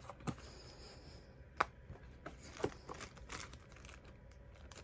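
Paper leaflets rustling and a black plastic pistol hard case being handled and shut. A few sharp plastic clicks and knocks come from the lid and latches, the loudest about a second and a half in.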